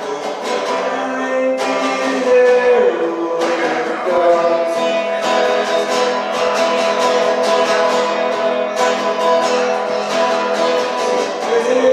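Acoustic guitar strummed steadily in a live solo song performance, with a man singing over it.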